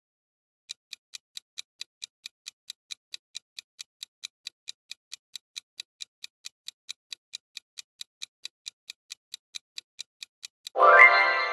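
Countdown-timer sound effect: clock-like ticking, about four to five ticks a second, that stops near the end as a much louder ringing chime sounds and dies away, marking time up.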